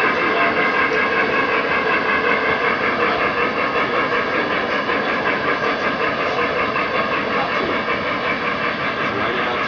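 O-gauge model freight train's refrigerator cars rolling past on three-rail track: a steady rumble and clatter of wheels on the rails, pulsing slightly in loudness.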